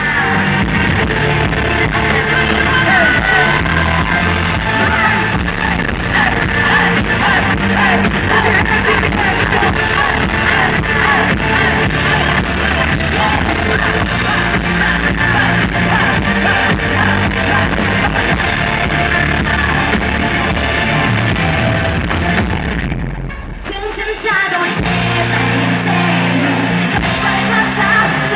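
Live pop-rock band playing through a PA: electric guitar, bass guitar and drums with a male lead vocal. About 23 seconds in the band briefly drops out, then comes back in with heavy bass.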